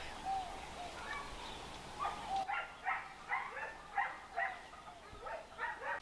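Farm animals calling: a run of short, repeated calls, about three a second, starting about two seconds in, with a few scattered calls before.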